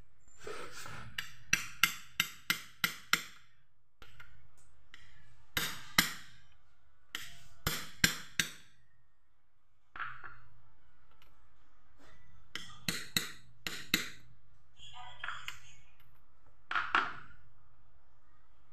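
Hammer tapping a socket used as a driver to seat a part into a motorcycle engine's crankcase: sharp metallic taps in quick runs, about six in a row a couple of seconds in, with further short runs later.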